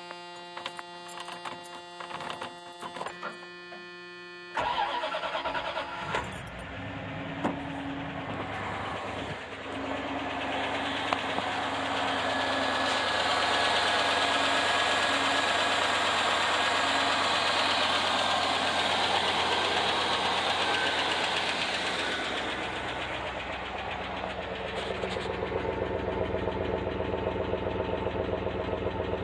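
1988 Dodge Ramcharger's V8 engine starting about four and a half seconds in, then running at a steady idle. Near the end the exhaust is heard right at the tailpipe, its pulses more prominent.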